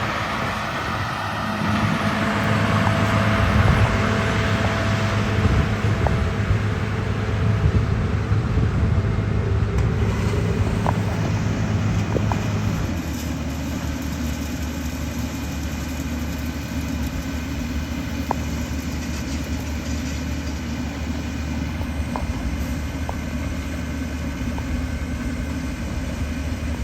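Oxbo combine running steadily, a continuous engine and machinery drone. About thirteen seconds in, the engine note drops to a lower, slightly quieter hum.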